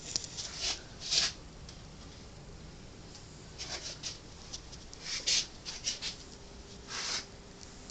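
Faint, scattered short rustles and scrapes, about half a dozen, with one faint steady hum starting around five and a half seconds in.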